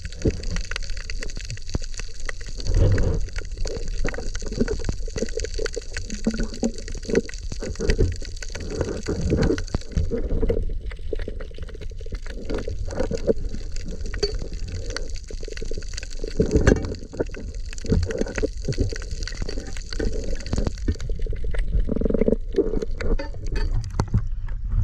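Muffled water sloshing and gurgling picked up by a camera underwater, with irregular low thumps.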